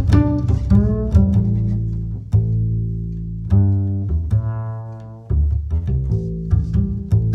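Background music with low string instruments, bowed and plucked, playing sustained notes and chords.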